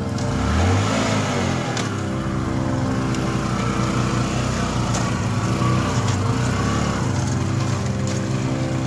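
Motorcycle engine under throttle as the bike is ridden slowly through mud and loose bricks, revving up about a second in, then running steadily.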